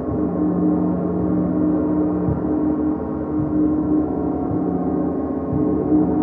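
A gong played continuously for a sound bath: a dense, sustained wash of many overlapping ringing tones at a steady level, renewed by soft strokes every second or two.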